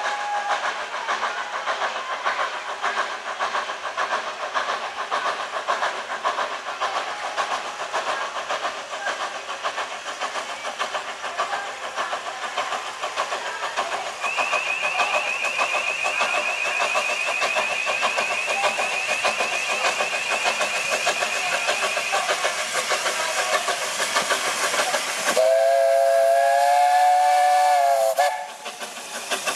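Narrow-gauge steam tank locomotive Superior working toward and past, its exhaust chuffing in quick, even beats, with a thin high-pitched squeal over the chuffing for several seconds in the middle. Near the end its steam whistle gives one loud, slightly wavering blast of about three seconds that cuts off sharply, then steam hisses.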